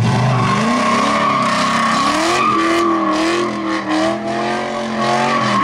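Drift car engine revving up from idle and accelerating away, its pitch climbing about half a second in and then rising and falling with the throttle. Tyres squeal and skid over it.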